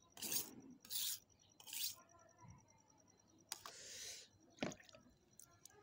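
An 8-inch knife blade scraping across a wet red sharpening stone. It makes three quick strokes about a second apart, then a longer stroke around the four-second mark, with a light tick of steel on stone before and after it. These are finishing strokes to take the burr off the edge.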